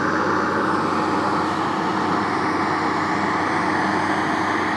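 Excavator engine running steadily, a constant drone with no change in pitch or level.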